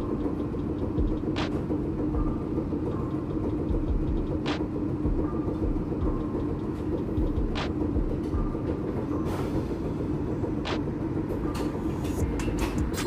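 1944 PCC streetcar standing still with its equipment giving a steady low hum and rumble. A sharp click comes about every three seconds, and quicker clicks follow near the end.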